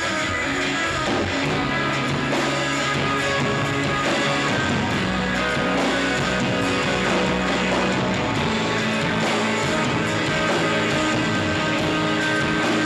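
A shoegaze rock band playing live: distorted electric guitars and bass in a dense, steady wall of sound with long held notes.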